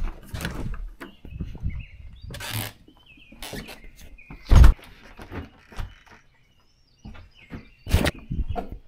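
A door opened by hand, then footsteps and knocks on a wooden walkway, with a loud thump about halfway through and another near the end.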